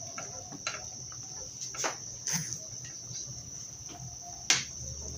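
Pan of squid adobo simmering on a gas stove, with a wooden spatula knocking against the pan a few times; the loudest knock comes about four and a half seconds in. A steady high-pitched drone sounds underneath.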